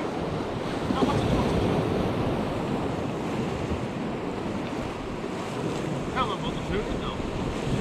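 Wind buffeting the microphone over steady sea surf washing against a rocky shore.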